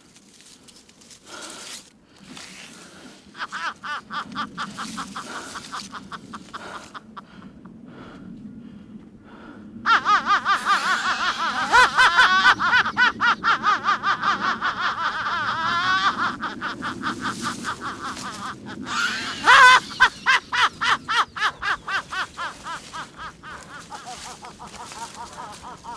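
High-pitched laughter in fast, even "ha-ha" pulses. It starts faint, grows loud about ten seconds in, peaks sharply near the twenty-second mark and then fades.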